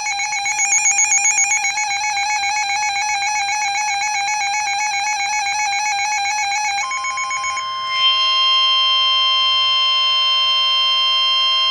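Emergency alert tones announcing a new flood warning: a fast-warbling electronic tone for about seven seconds, then a steady alert tone with a higher ringing tone joining it, cutting off abruptly.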